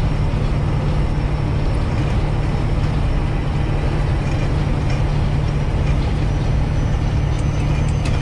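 Cab interior of a semi truck cruising at highway speed: steady low diesel engine drone mixed with road and wind noise.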